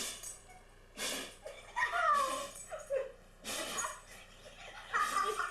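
A dog sneezing over and over, a short noisy burst about once a second, with two brief pitched vocal sounds in between, the louder about two seconds in.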